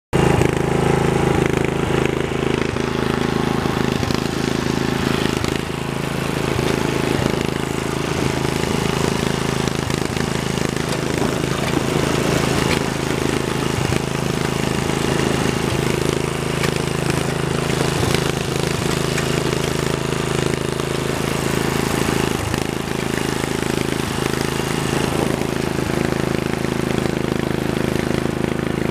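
Riding lawn mower's engine running steadily while driving, a constant low hum that dips briefly about five seconds in.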